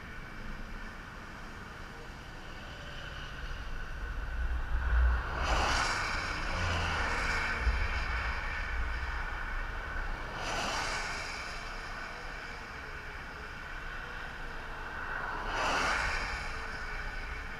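Cars passing one at a time on a highway, with three separate tyre-and-engine whooshes about five seconds apart.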